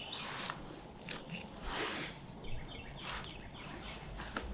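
Soft rustling and a few small clicks from a hunter's clothing and gear being handled, with a bird chirping faintly about two and a half seconds in.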